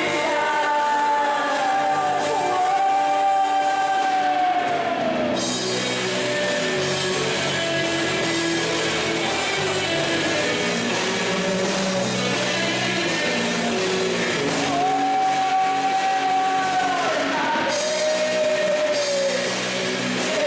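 Live rock band playing: a man and a woman sing into microphones over electric guitar and drums, holding long notes that drop in pitch as they end, once near the start and again about two-thirds through.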